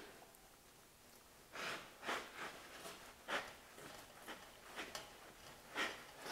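Faint, strained breathing from a man straining on a long cheater bar: short forced exhalations, about half a dozen spread over several seconds.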